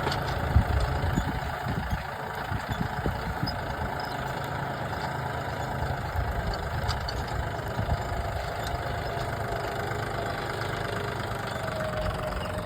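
John Deere 5210 GearPro tractor's diesel engine running steadily, with a few low thumps in the first few seconds.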